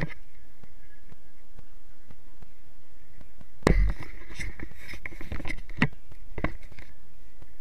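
A single dull thump a little under four seconds in, followed by a few light, scattered knocks and clicks over the next few seconds.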